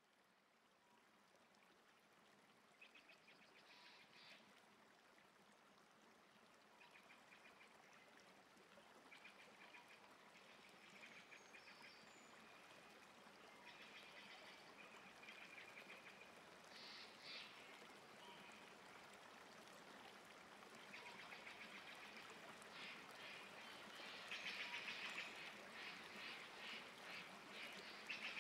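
Faint rasping of embroidery thread being drawn through knit T-shirt fabric, in short strokes every second or two that grow louder toward the end.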